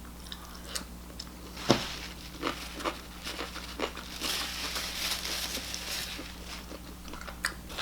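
Snack packaging crinkling and rustling, with scattered small clicks and taps; the rustling is densest about four to six seconds in.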